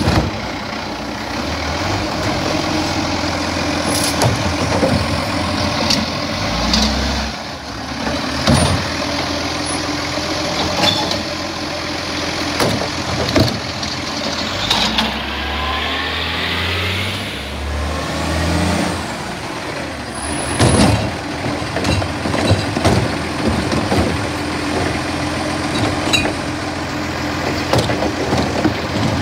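Side-loading garbage truck collecting recycling bins with its automated arm. The diesel engine runs throughout and revs up and down to drive the hydraulics, with a rising whine in the middle. Repeated clunks and rattles come as bins are lifted, tipped and knocked, along with a few short hisses of air.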